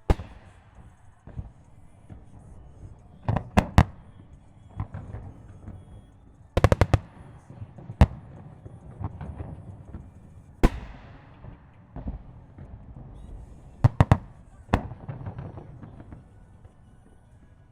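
Aerial firework shells bursting: sharp bangs at irregular intervals, several coming in quick clusters of two to four, with low rumbling echoes rolling on between them.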